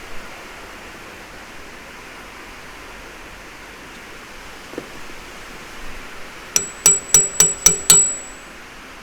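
Six quick hammer taps on steel, about four a second, each ringing briefly with a high metallic tone, near the end, after a single faint knock; a steady hiss underneath throughout.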